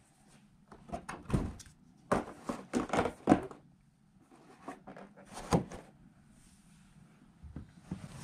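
A run of short clicks, knocks and rubs from objects being handled and set down on a hard surface, busiest in the first half and with a single sharp knock a little past the middle.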